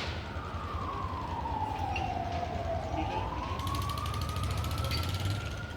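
Fire engine siren wailing: its tone falls slowly in pitch for about three seconds, then rises back up, over a low rumble.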